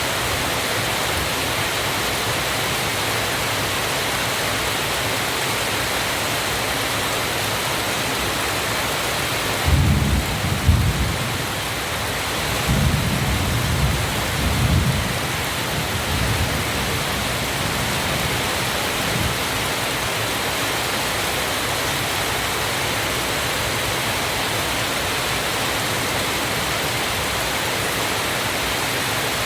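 Waterfall rushing steadily, with a low rumble that surges irregularly for several seconds starting about a third of the way in.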